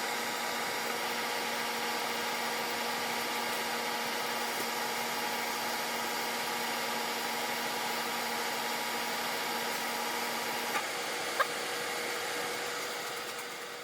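Toshiba 70-pint dehumidifier running: a steady rush of fan air with a low hum. One hum tone drops out about three-quarters of the way through, and the sound fades away at the end.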